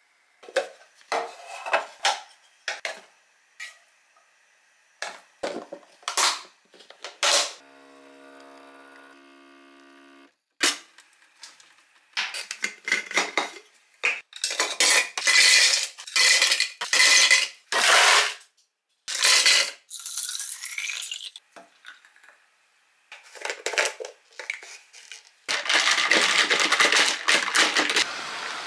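Glass kitchen clatter: ice cubes clinking and knocking into a glass mason jar, with the jar and its lid knocking on the counter. About 8 seconds in there is a brief quiet steady hum. Near the end, ice rattles in the jar continuously for a few seconds.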